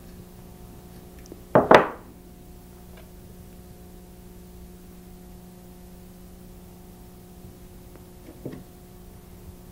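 Steady low electrical hum under small handling sounds from wire and round-nose pliers: faint clicks, a short knock about a second and a half in, and a weaker one near the end.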